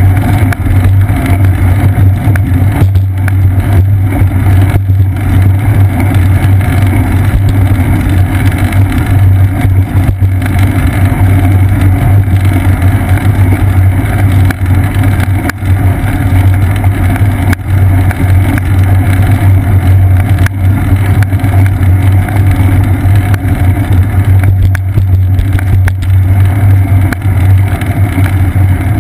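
Steady, loud low rumble of wind and road vibration on the microphone of a GoPro Hero 2 mounted on a bicycle's seat post while riding over damp pavement.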